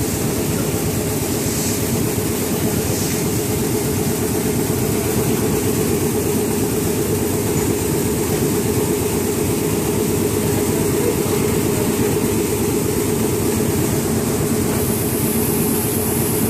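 Seed-cleaning machinery running steadily: a loud, even mechanical drone with a fast rattle underneath.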